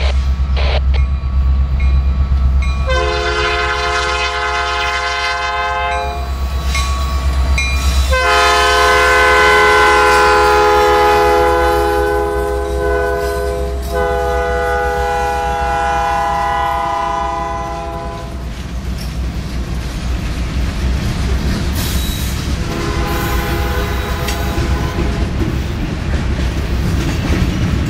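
Norfolk Southern freight train led by GE Dash 9-40CW diesel locomotives sounding its multi-chime air horn in a series of long blasts as it approaches and passes, over the low rumble of the diesel engines. The horn stops about 18 seconds in, leaving the rolling noise and wheel clatter of the freight cars going by, and then the horn sounds again more faintly near the end.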